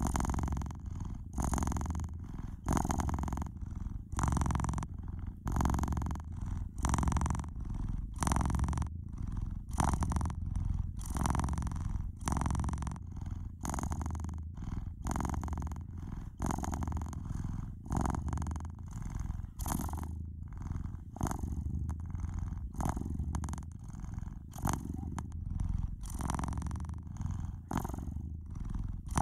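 Domestic cat purring steadily and without a break, the purr swelling and fading in an even rhythm.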